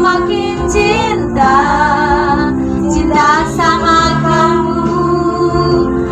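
Background pop music: a woman singing over instrumental backing.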